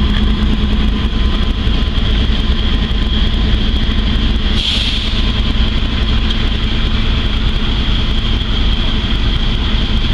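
Diesel locomotives idling with a steady low rumble and a steady high whine, with a brief hiss about halfway through.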